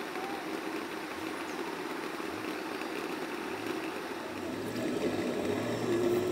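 Steady rushing noise of a shallow stream running over stones, growing a little louder about five seconds in.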